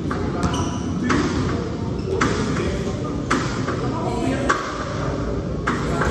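Volleyball being struck again and again in a rally, a sharp ringing hit about every second, over the steady noise of an arena crowd.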